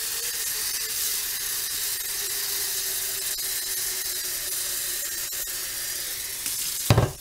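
Water from a kitchen faucet running into a metal cooking pot, a steady splashing hiss as the pot fills. A short, loud knock comes near the end.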